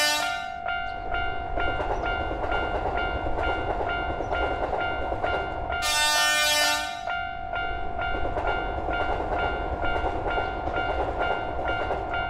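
Level-crossing bell ringing steadily at about two strokes a second over the rumble of a passing train. About six seconds in, a train horn sounds once for about a second.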